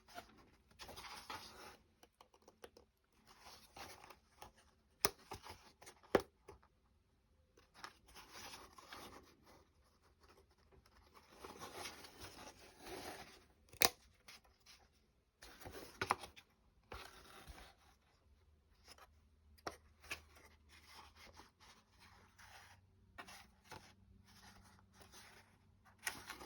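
Wooden clock-kit parts being handled and pushed into place: on-and-off scraping and rustling with a few sharp clicks and taps of wood on wood.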